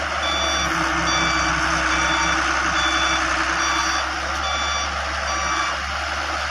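A heavy vehicle's reversing alarm beeping steadily, a little faster than once a second, stopping near the end, over a diesel engine running.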